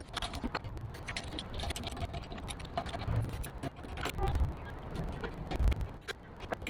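Irregular clicks and clinks of small hard objects being handled, with a few low thuds.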